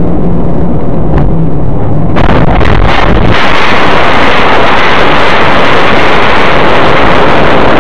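Car crash heard from inside the crashing car: engine and road hum, then from about two seconds in a loud, steady harsh noise that lasts several seconds as the car overturns and slides with its windshield cracked.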